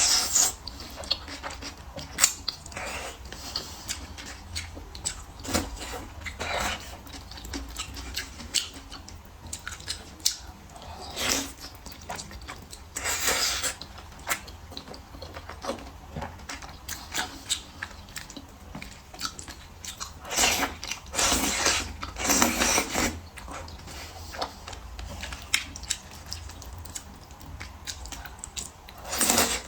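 Close-up eating sounds: a person chewing and biting food, with many small wet clicks and smacks and a few louder bursts of chewing.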